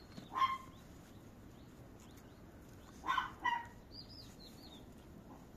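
A dog barking in the distance: three short barks, one about half a second in and two close together about three seconds in. Faint bird chirps come in between.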